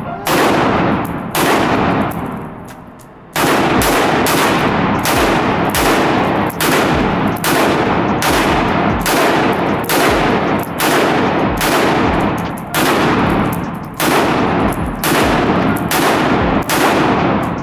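AR-style rifle fitted with a muzzle brake firing a long string of rapid semi-automatic shots, about two a second, with one short pause near the start. Each shot is a sharp blast that echoes off the walls of the indoor range.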